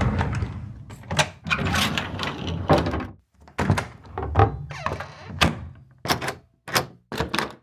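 Wooden cabinet doors and drawers being handled, a series of separate thunks, knocks and latch clicks with short pauses between them. It starts over the tail of a low rumble that fades out in the first second.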